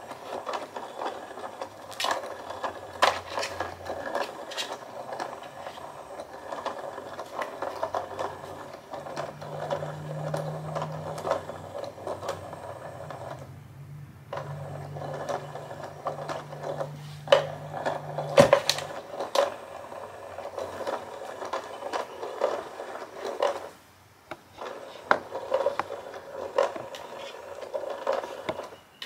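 Electronic whack-a-mole cat toy's small motor whirring as it pokes a feather wand in and out of its holes at random, fairly quiet. The whirring stops briefly twice, and there are a few sharp knocks.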